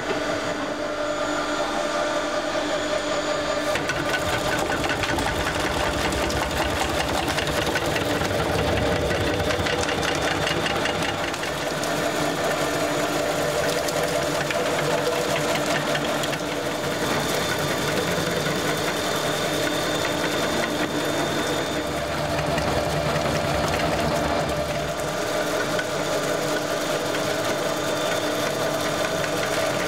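Palmer Solia vegetable cutting machine running: a steady electric-motor hum under the fast, dense clatter of its spinning blade disc slicing whole cucumbers into rounds.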